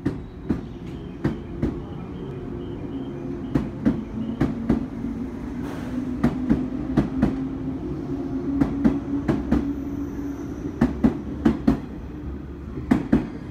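A JR 185-series electric train pulling slowly out of the station with a steady running hum. Its wheels clack over the rail joints in pairs and small groups about every two and a half seconds, coming a little closer together as it gathers speed.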